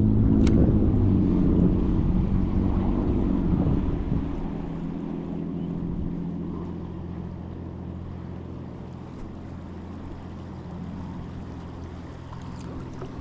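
A vehicle engine's steady hum, loud for the first few seconds and then fading to a softer, steady drone, with wind buffeting the microphone.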